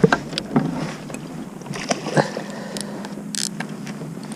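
Scattered knocks and clicks of handling in a small fishing boat, with a short hiss about three and a half seconds in.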